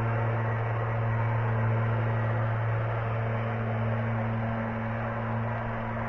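A steady low hum with an even hiss behind it, unchanging throughout.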